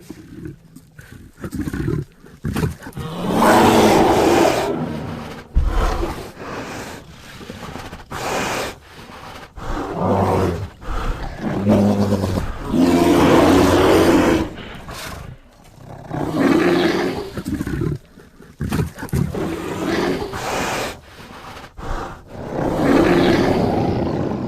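A string of bear roars and growls: several long, loud roars, each lasting a second or two, with shorter, quieter growls between them.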